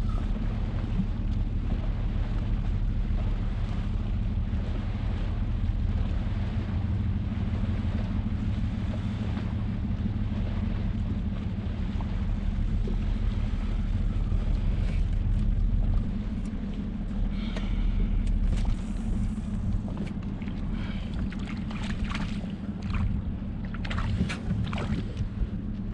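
A small boat's motor running with a steady low hum, easing off about two-thirds of the way through and then picking up again. Sharp clicks and rattles come in over the last ten seconds.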